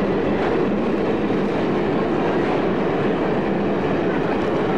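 A passenger train running at a station platform, a steady unbroken rumble.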